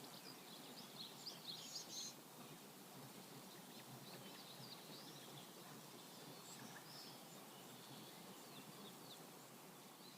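Faint outdoor ambience with small birds chirping: a quick run of chirps in the first two seconds, then scattered calls.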